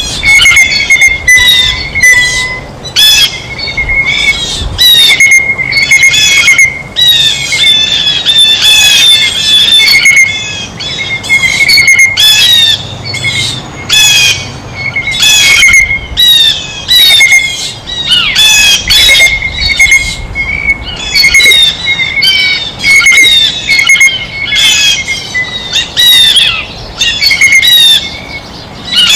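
Blue jays calling at a feeder: a continuous run of loud, harsh, repeated squawking calls, several a second.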